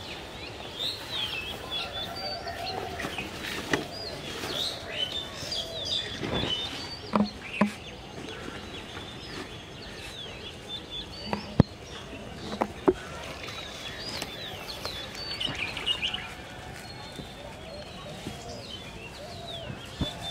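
Small birds chirping and calling continuously in short rising and falling notes, with a few sharp clicks and knocks, the loudest about halfway through.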